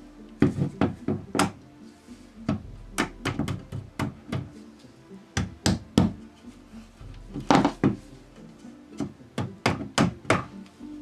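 Claw hammer tapping a tight-fitting wooden glazing bead into a glazed door frame. Light, sharp taps come in quick runs of three to six, with short pauses between the runs.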